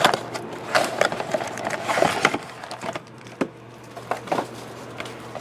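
An Absolute Basketball trading-card box being handled and opened: irregular crinkles, taps and scrapes of cardboard and plastic packaging.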